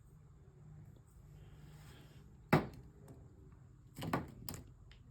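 Toys and packaging handled on a tabletop: a soft rustle, then one sharp knock about halfway through, followed by a few lighter clicks and taps near the end.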